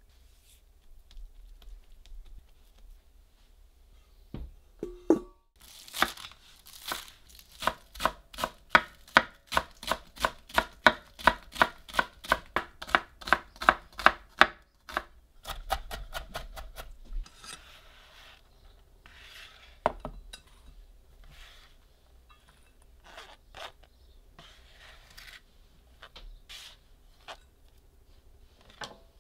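Chef's knife chopping green onions on an end-grain wooden cutting board: a steady run of about two to three chops a second for some eight seconds. Before and after it, quieter scattered taps and rustles.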